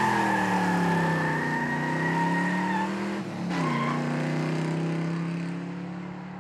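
A car engine running hard with its tyres squealing. About three seconds in, the engine note drops sharply and climbs again with a short tyre chirp, as in a gear shift under power. The sound fades out near the end.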